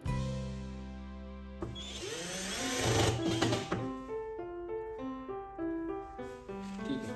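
Background music: held chords, then a brief noisy swell from about two to four seconds in, then a steady picked or keyboard melody.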